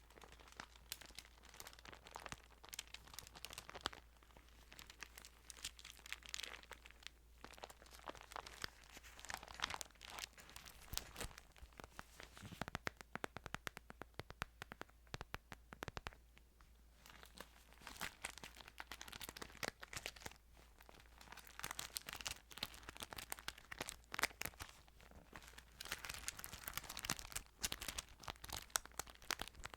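Thin Bible pages being handled and turned close to the microphone: crisp crinkling and rustling in bursts, with a quieter spell about halfway through.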